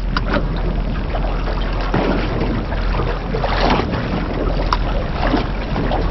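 Wind buffeting the microphone over water moving around a small boat's hull, with scattered light knocks.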